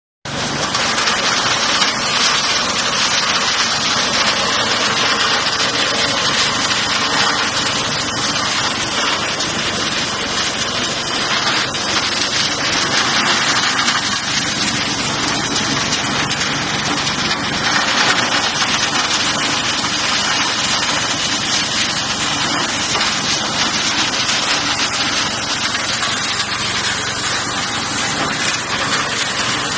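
Combined corn husk peeler and thresher running under load, its drum stripping husks and shelling kernels from the cobs fed into it. The noise is loud, dense and steady throughout.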